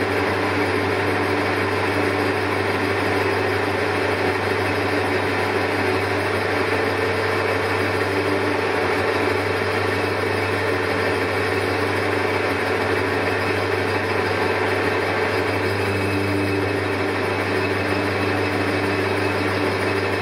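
Colchester Triumph 2000 lathe turning a long, slender shaft under a heavier cut: a steady motor and spindle hum with the tool cutting and a vibration running through the work. The sign of chatter, as the unsupported shaft flexes while metal comes off.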